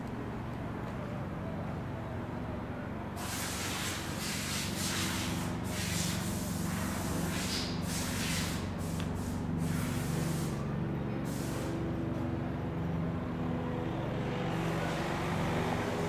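A large engine runs steadily close by, its hum growing slightly louder, with a run of short air hisses from about 3 to 11 seconds in.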